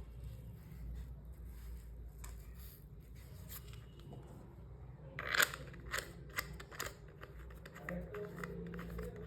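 Hands handling a plastic camera strap mount and its packaging: a scattering of small sharp clicks and snips, with the loudest cluster about five seconds in and several more quick clicks just after.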